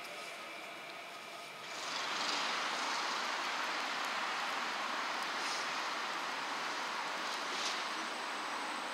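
A CAF Urbos 3 tram approaching, heard as a steady hiss of running noise that jumps louder about two seconds in.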